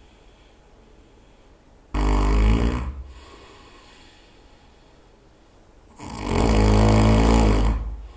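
A person snoring very loud in sleep: two heavy snores, the first starting suddenly about two seconds in and lasting about a second, the second about four seconds later and longer, nearly two seconds.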